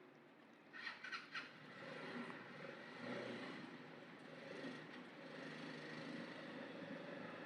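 Faint, steady background noise of distant traffic, with a quick run of three or four sharp clicks about a second in.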